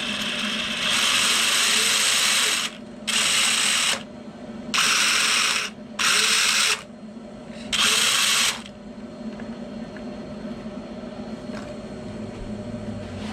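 Kyosho Blizzard 2.0's twin 3600 kV brushless motors spinning the gearboxes and tracks in five short throttle bursts, a whirring gear rattle, each lasting a second or two. After that only a faint steady hum remains.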